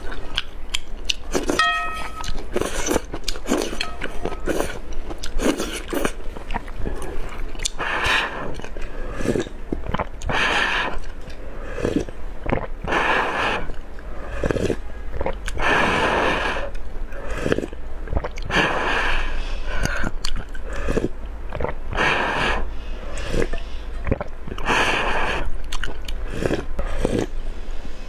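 Close-miked eating of noodle soup: repeated slurps of noodles and sips of spicy broth, with chewing between them.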